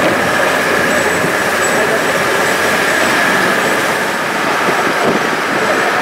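Steady engine and road noise of a moving bus, heard from its open side window.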